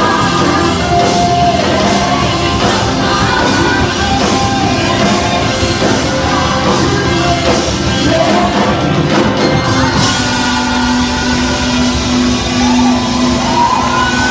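Live worship band playing a loud rock-style song, with voices singing over it. About ten seconds in, the high crashing sounds stop and a low note is held under the singing.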